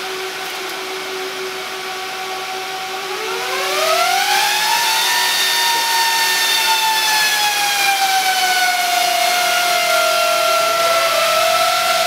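HP DL580 Gen8 server's cooling fans whining, then about three seconds in rising in pitch and getting louder as they speed up after one hot-swap fan is pulled, then slowly easing back down, with a smaller rise near the end.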